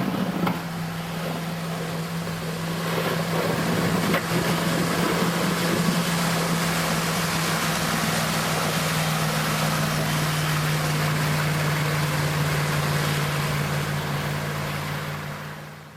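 Motor vehicle engine running with a steady low hum under a broad hiss of road or wind noise, growing louder about three seconds in and fading out near the end.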